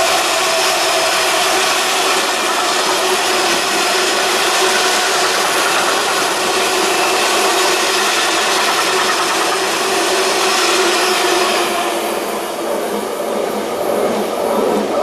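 Long freight train of engineering wagons rolling past on the main line: a steady rumble and clatter of wheels on rail. It dies away over the last few seconds as the end of the train goes by.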